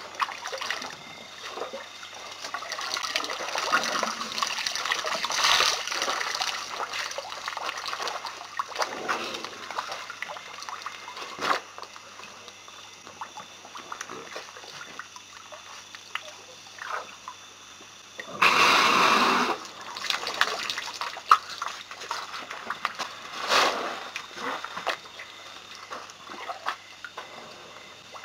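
Elephants drinking at a waterhole: water trickling and splashing as trunks dip in and lift out. A louder rushing splash comes about eighteen seconds in and a shorter one a few seconds later.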